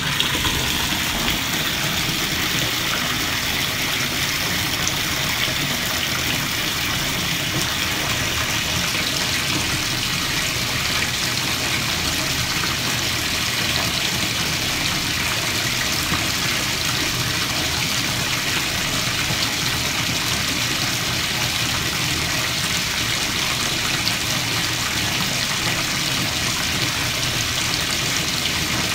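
Bathtub faucet running, a steady stream of water pouring into a foamy bath.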